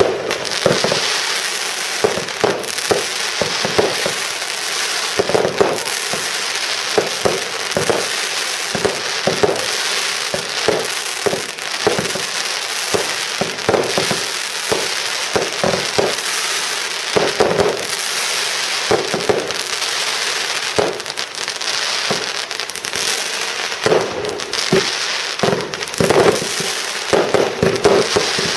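Fireworks display in full swing: a continuous barrage of shell bursts and crackle, with sharp bangs coming thick and fast.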